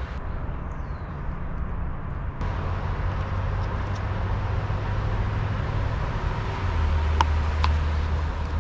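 Steady low engine rumble of a vehicle running nearby, with two short light clicks about seven seconds in.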